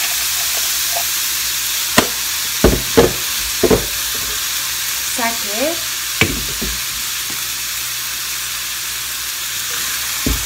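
Beef and onion sizzling steadily in a frying pan over low heat, with several sharp clinks of a metal spoon against the sugar container and the pan.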